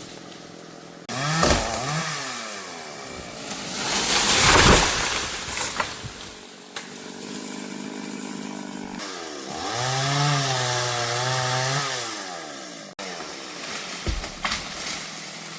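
Stihl chainsaw revving up and down and cutting into mahogany, its engine pitch rising and sagging under load. There is a loud noisy swell about four seconds in, and a long high-revving cut later on.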